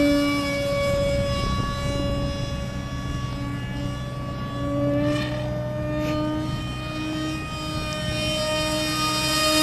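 Motor of a scratchbuilt RC F-18 model plane in flight: a steady whine with a stack of overtones, its pitch shifting slightly as the throttle and the plane's distance change, with brief rushing swells about halfway through.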